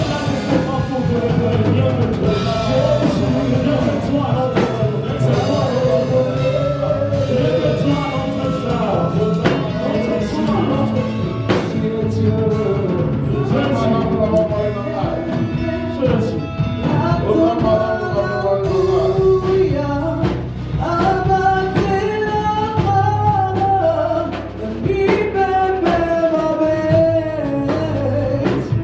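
A praise and worship song: voices singing over a band with drum kit and bass.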